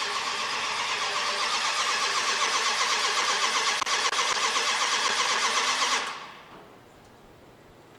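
Starter cranking the newly installed 1968 Dodge 440 V8 with a steady, even rhythm on its first fire-up attempt. It does not catch, and the cranking stops abruptly about six seconds in.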